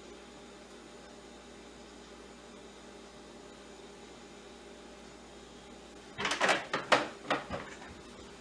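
Low steady room hum, then, about six seconds in, a short run of four or five loud knocks and rustles: handling noise as the twine-wrapped glass jar is lifted up to hang.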